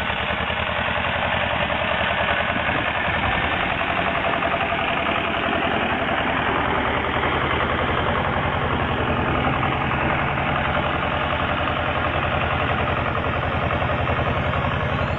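Small tractor engine running steadily with a rapid, even beat while it tows a trailer loaded with logs.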